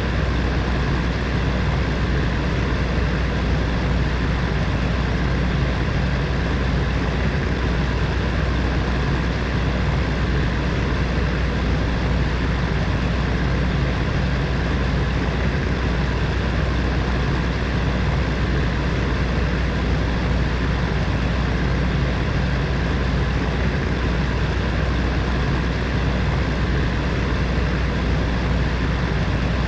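Electric heater fan running steadily: a constant whooshing hum, strongest at the bottom, with a faint motor whine above it.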